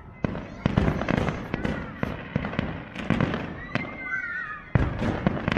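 Aerial fireworks bursting: a rapid, irregular series of sharp bangs and crackles, a dozen or more, with a loud cluster of bangs near the end.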